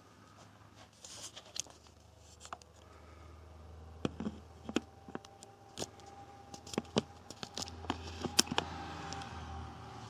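Scattered light clicks and knocks of small objects being handled, more frequent from about four seconds in, over a low steady hum.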